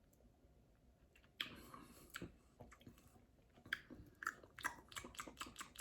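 Faint mouth sounds of someone tasting a protein shake: a sip about a second and a half in, then a run of quick wet smacks of the lips and tongue.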